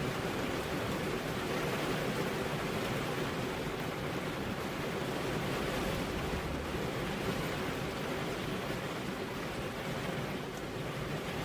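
Steady, continuous rain: an even hiss that holds the same level throughout, with no drips or thunder standing out.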